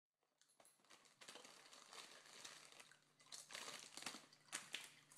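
Faint crinkling of a plastic chip bag being handled, with a few sharper crackles in the second half.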